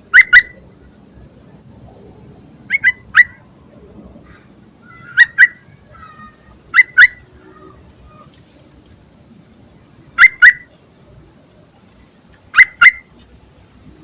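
Yellow-vented bulbul (trucuk) calling, a female's call used to lure males: six bursts of sharp, short notes, mostly quick pairs and one of three, spaced a couple of seconds apart.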